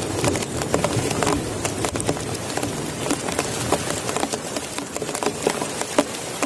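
Heavy rain falling, with many separate drops tapping irregularly on a surface close by over a steady hiss.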